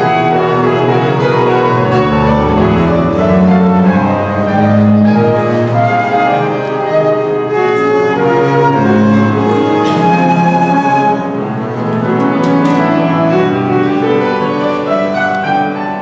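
Transverse flute playing a slow melody over a fuller live accompaniment of sustained notes.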